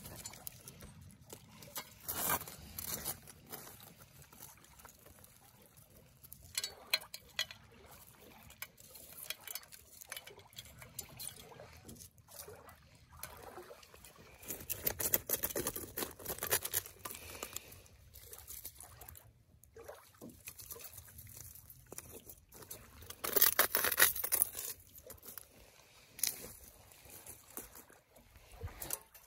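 Hands in cotton work gloves sifting through ash and charred wood, with crunching, rustling and light scraping of charcoal pieces on a slotted metal grate. The sound comes in irregular spells, loudest about fifteen seconds in and again around twenty-three seconds.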